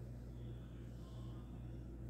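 Quiet room tone: a steady low electrical or mechanical hum with faint background noise, no distinct event.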